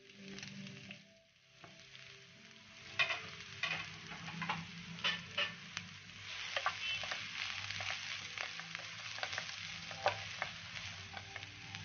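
Sliced onions frying in hot oil in a pan. The sizzle grows louder about halfway through, and a wooden spatula scrapes and taps against the pan as the onions are stirred.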